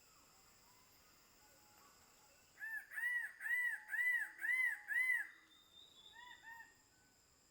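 A bird calling a series of about six loud, evenly spaced notes, each rising and falling in pitch, followed by three fainter ones, over a steady high insect drone.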